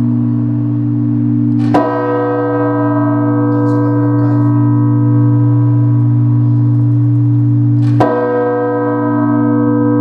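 A 3000 kg church bell cast by Perner of Passau in 1996, tolled by its clapper in slow single-bell blagovest style. It is struck twice, about six seconds apart, and each stroke renews a long ringing hum that sustains between strikes.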